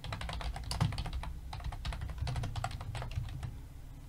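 Fast typing on a computer keyboard: a quick run of key clicks that thins out and stops about three and a half seconds in.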